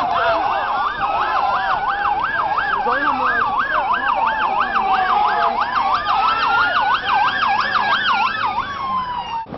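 Ambulance sirens: a fast yelp warbling up and down about three times a second, over a slower wail that rises and falls every few seconds. Both cut off abruptly near the end.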